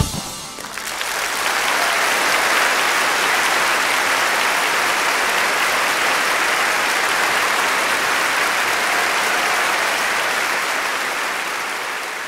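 Large audience applauding at the end of a live rock song, the clapping swelling over the first couple of seconds, holding steady, then fading near the end.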